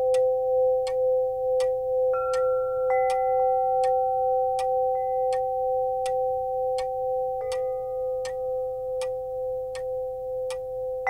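Background music of steady held tones with a regular soft ticking, and higher notes that come in and fade every few seconds.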